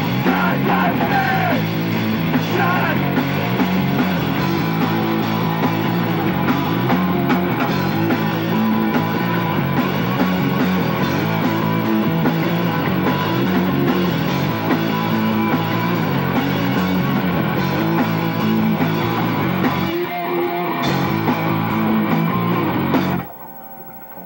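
Live rock band, electric guitars, bass and drum kit, playing loud and fast. The song stops abruptly about a second before the end, leaving a chord ringing out.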